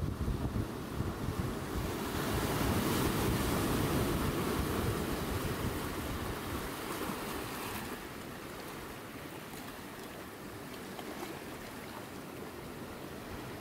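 Sea surf: a wave surges and washes back, loudest in the first half and then settling to a steadier, quieter rush, with wind buffeting the microphone.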